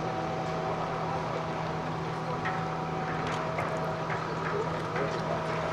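Diesel engine of a mobile crane running steadily while it holds a roller coaster track section, with a few light knocks.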